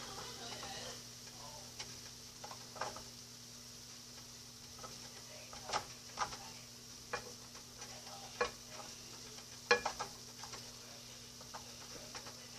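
Kitchen utensils clicking and knocking against pots and dishes in scattered light taps, over a steady low hum and a faint hiss.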